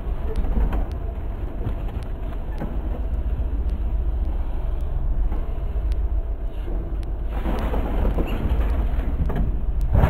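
Volvo EC210CL excavator's diesel engine running steadily with its hydraulics working as the bucket and thumb hold a crushed refrigerator. From about seven seconds in the sound gets louder and rougher as the bucket brings the fridge down onto the pile of debris.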